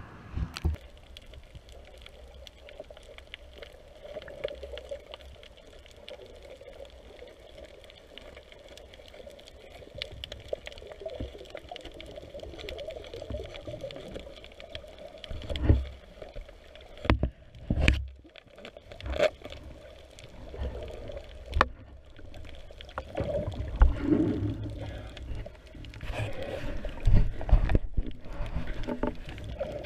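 Muffled water movement heard by a camera under the sea surface, with a steady underwater wash and a series of dull, low thumps and knocks, a cluster about halfway through and more near the end.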